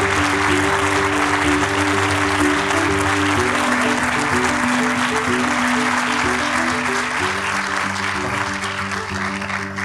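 Audience applauding over instrumental music with held low notes that change every few seconds; the clapping thins out near the end.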